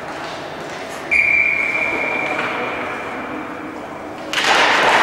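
Ice hockey game in an arena: a clear ringing tone starts about a second in and fades out over about two seconds. Near the end a sudden rise of broad rink noise follows.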